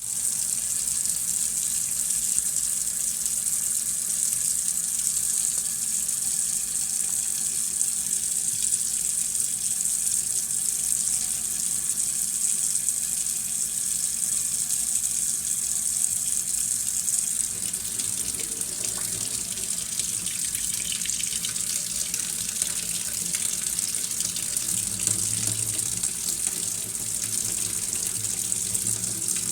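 Waterfall: a steady rush of falling water, mostly high hiss. About two-thirds of the way through the hiss eases slightly and a lower rumble joins it.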